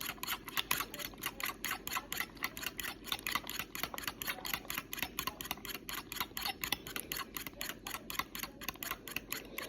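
Eggs being beaten in a bowl with a fork or whisk: a fast, even clicking of the utensil against the bowl, about five or six strokes a second.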